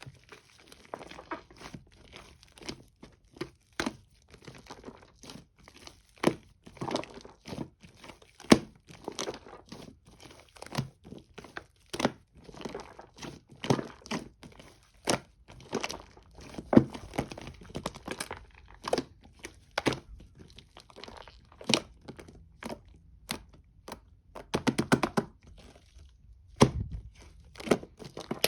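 Foam slime being squeezed, pressed and pulled by hand, giving irregular crackles, crinkles and sharp pops.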